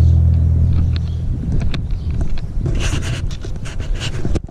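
Background music fading out in the first second, then wind buffeting the microphone with light scrapes and rustles of someone moving about. The sound drops out abruptly near the end.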